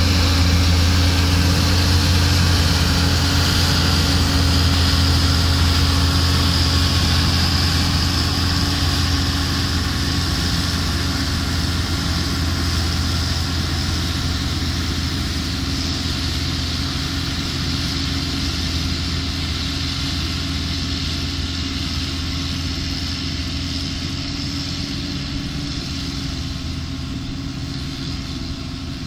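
Sampo-Rosenlew 410 combine harvester running with a steady low drone, slowly fading as it drives away.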